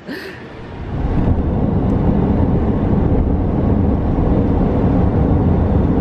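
Steady low rumble of road and engine noise heard from inside a moving car's cabin, setting in about a second in.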